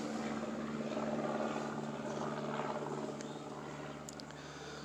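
A distant engine droning steadily, slowly fading.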